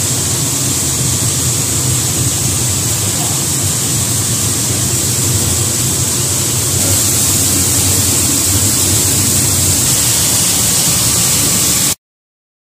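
Flour roller mill machine running: a steady loud machine noise with a strong hiss high up and a low hum underneath, cutting off suddenly near the end.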